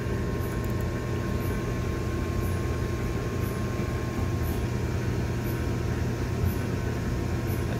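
Steady low hum of running mechanical equipment, with a faint steady tone above it.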